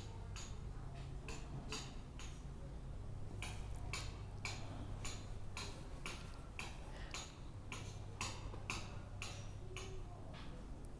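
A paintbrush dabbing paint onto fabric, making light, sharp clicking taps at an even pace of about two a second, over a steady low hum.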